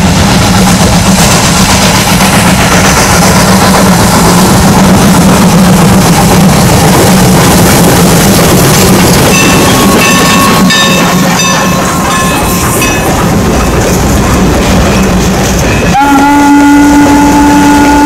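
Norfolk & Western No. 475 steam locomotive and its passenger coaches rolling past close by, a loud steady rumble and clatter of running gear and wheels on rail, with short high-pitched wheel squeals about halfway through. Near the end the locomotive's steam whistle sounds one long steady note.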